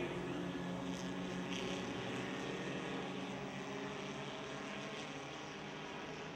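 Several compact stock cars racing on a dirt oval, their engines running together in a steady drone that fades gradually as the pack moves away.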